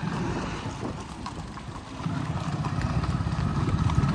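An engine running steadily with a low, even rumble that grows a little louder about two seconds in.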